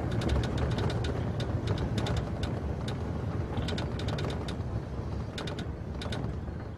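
Vehicle driving along an unpaved dirt and gravel road, heard from a roof-mounted microphone: a steady low rumble of engine and tyres with many irregular sharp clicks and rattles.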